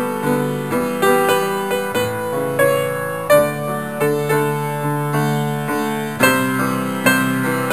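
Background piano music: a gentle melody over sustained chords, with notes struck and left to fade.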